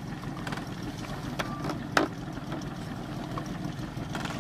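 Small boat's outboard motor idling with a steady low pulsing hum, and a couple of short knocks about a second and a half and two seconds in.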